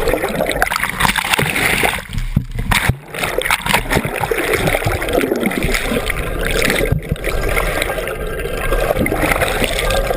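Water splashing and sloshing, loud and uneven, with indistinct voices mixed in.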